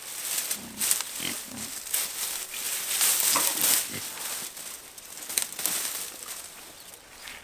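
Old tomato plants being pulled up and dragged out of a garden bed, the dry leafy vines rustling and crackling, loudest in the first half.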